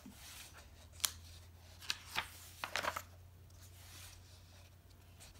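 Pages of a paperback coloring book being turned by hand: soft paper rustling with a few sharp flicks of the pages about one, two and three seconds in.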